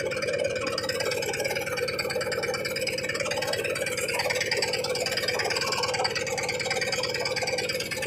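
A small boat's engine idling steadily, with an even, fast chugging pulse.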